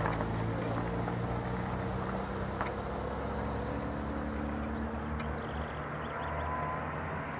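A motor vehicle engine running steadily, a low even hum with little change in pitch.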